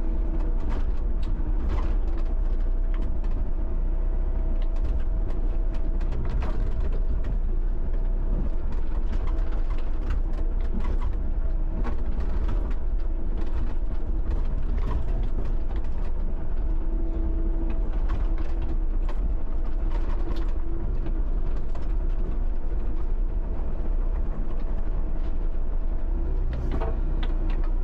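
John Deere 60D mini excavator working: its engine and hydraulics run steadily under load with a constant whine, broken by frequent metallic clanks and creaks.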